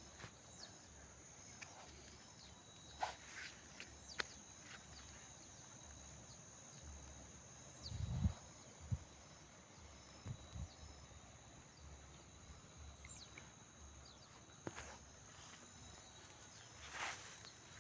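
Faint outdoor ambience of insects chirring in steady high tones, with scattered small clicks and a low thump about eight seconds in.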